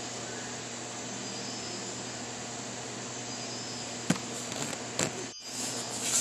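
Steady faint hiss of room tone, then a few sharp knocks and a rustle close to the microphone in the last two seconds as the recording phone is bumped and handled.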